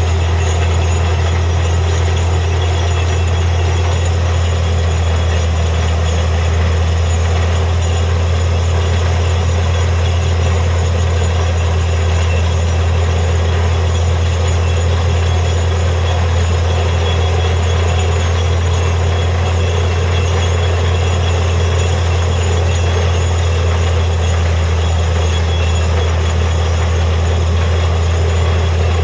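Truck-mounted borewell drilling rig running steadily under load while drilling, its engine giving a deep, unchanging drone, mixed with the rush of the bore being flushed out around the drill pipe.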